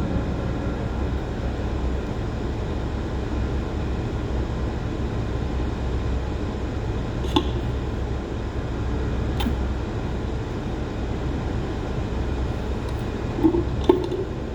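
Steady low mechanical hum, with a few light clicks and taps on top.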